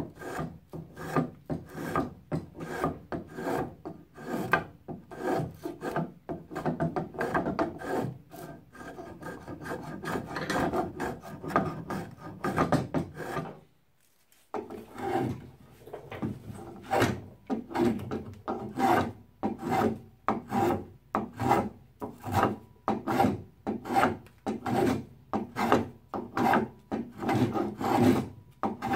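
Spokeshave shaving a hardwood axe handle in quick repeated strokes, about two a second, with a short break near the middle.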